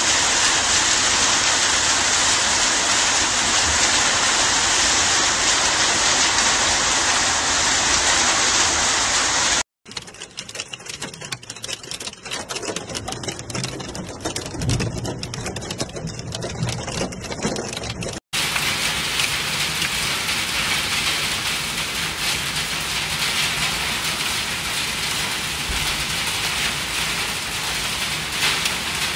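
Heavy rain and hail pouring down in a steady hiss, in three recordings joined by abrupt cuts about ten and eighteen seconds in. The middle part is quieter and more uneven, heard from inside a car. The last part is hail falling on translucent roof panels.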